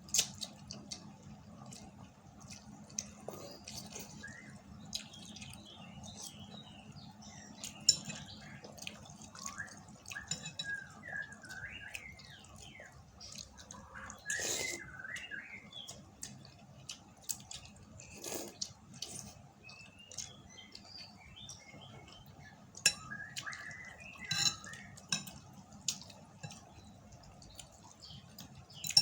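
Eating chicken noodles: slurping and chewing, with scattered sharp clicks of utensils against the bowl.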